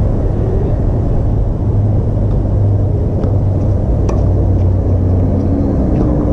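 Steady low rumble of outdoor background noise, with a few faint sharp knocks over it, the clearest about four seconds in, from tennis balls struck by rackets during a rally.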